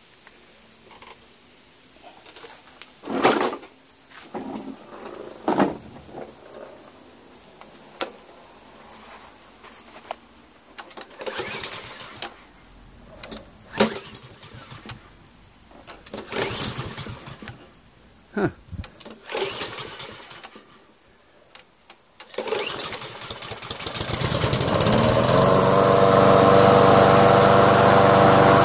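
Clicks and knocks of the mower being handled, then about 22 seconds in the Troy-Bilt lawn mower's Honda engine is pull-started and runs steadily and loudly through the end.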